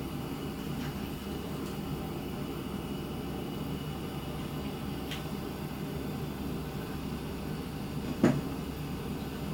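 Steady low background hum, with a few faint light clicks and one louder knock about eight seconds in.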